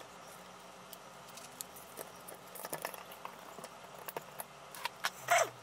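Light clicks and rattles of a capacitor being fastened to a hardboard crossover board with a plastic cable tie and side-cutting pliers, with a sharper click and a short falling squeak near the end.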